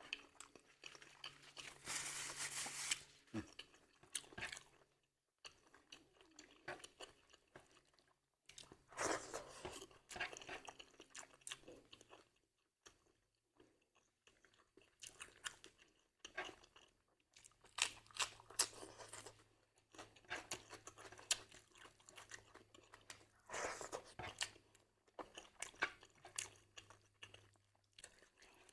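Close-miked chewing and crunching of food: irregular bursts of crunchy bites and chewing separated by short pauses.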